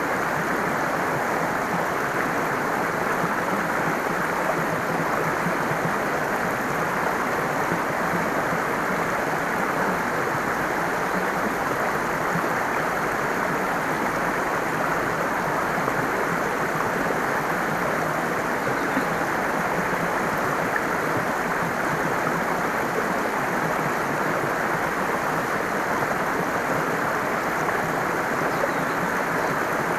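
Stream water flowing, a steady unbroken rush.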